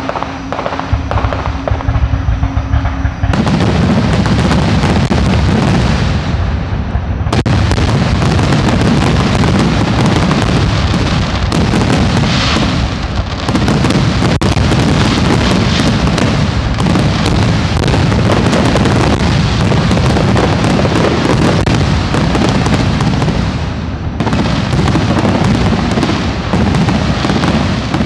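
Aerial fireworks shells bursting in a dense, continuous barrage of overlapping booms, building from scattered bursts to a near-unbroken volley about three seconds in.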